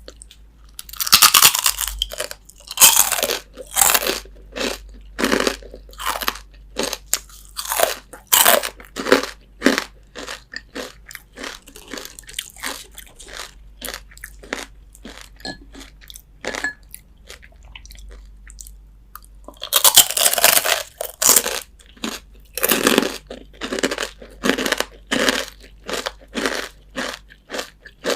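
Close-miked crunching and chewing of crispy fried chicken skin: loud bites crackling in short bursts, then steady rhythmic crunchy chewing, with a second big bite about twenty seconds in.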